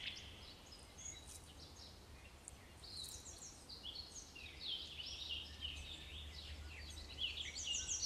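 Faint songbird calls and song: quick, high chirping phrases, busier from about three seconds in, over a steady low rumble.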